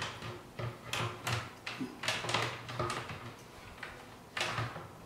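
Short clicks, knocks and scrapes of a radiator-and-fan assembly being pushed and shifted into place inside a PC case's front panel, with a dense run of them about two seconds in and another knock near the end.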